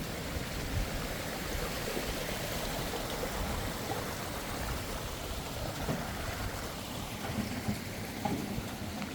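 Steady rushing noise with a few faint knocks.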